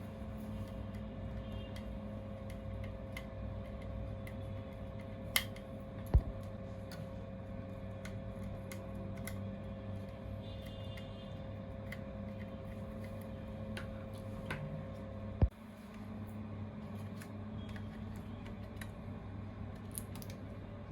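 Small clicks and taps of an SSD and tools being handled in an opened laptop, with three sharper clicks, two about 5 and 6 seconds in and one about 15 seconds in, over a steady low hum.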